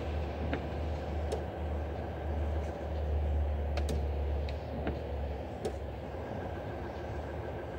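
Low drone of a Volvo truck's diesel engine heard from inside the cab while creeping in stop-and-go traffic. It swells in the middle and eases off after about five and a half seconds, with a few scattered sharp ticks.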